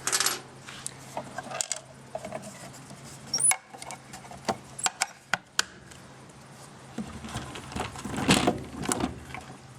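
Clicks, taps and a short scrape from hands working the plastic case of a Makita DMR110 radio, loosening its front panel. The taps are scattered through the first six seconds, and the scrape, the loudest sound, comes a little past eight seconds.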